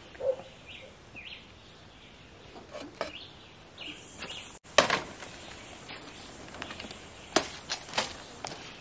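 Outdoor background with a few short bird chirps near the start, then scattered sharp knocks and rustles. The loudest knock comes just past halfway, with two more near the end.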